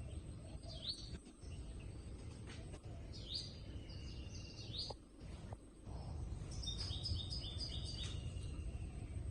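Wild birds calling over a low background of outdoor noise: a few rising chirps, then a quick run of about five repeated notes around seven seconds in.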